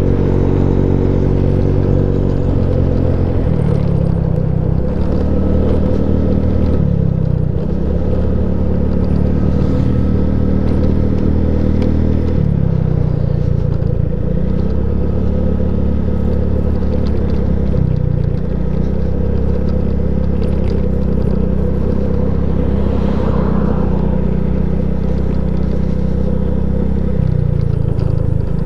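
SYM Jet 4 scooter's engine running while riding, its pitch rising and falling several times as the throttle is opened and eased, over a steady rush of wind noise.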